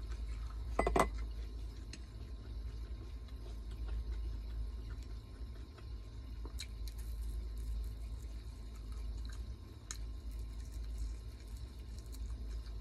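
Close-miked eating sounds: soft, wet clicks and squishes of chewing, with one louder knock about a second in, over a steady low hum.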